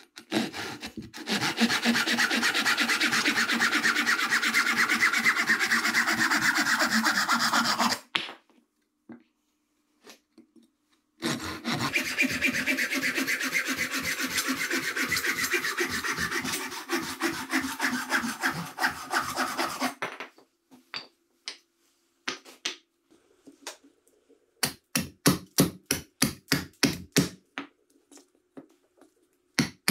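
A hand saw cutting through a wooden board in two long stretches of quick back-and-forth strokes. Near the end, a few scattered knocks, then a quick run of sharp hatchet chops into the wood, about four a second.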